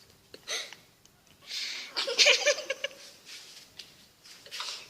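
A person's short breathy vocal sounds in three bursts: one about half a second in, a longer one lasting about a second in the middle, and a brief one near the end.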